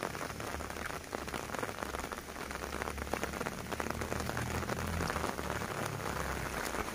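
Steady rain falling on grass, trees and a wet concrete lane, an even hiss dotted with many separate drop ticks, over a low rumble.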